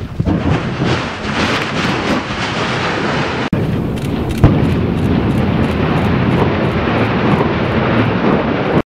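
Volcanic eruption: a loud, continuous roar of gas and ash venting from a crater. A sharp explosive bang stands out about four and a half seconds in.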